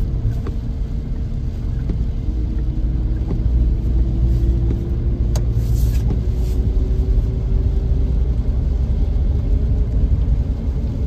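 Car being driven: a steady low road-and-engine rumble, with a faint hum that slowly rises in pitch.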